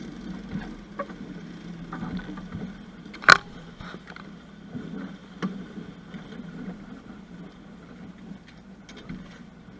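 Small fishing boat running at trolling speed: a steady low outboard-motor drone with water rushing past the hull. A single sharp knock sounds about three seconds in.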